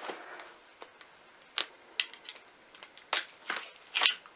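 Scattered sharp clicks and light knocks of hard objects being picked up and handled, bunched together in the last second or so.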